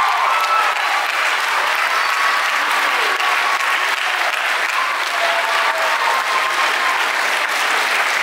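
Sustained applause from a concert audience and band, steady throughout.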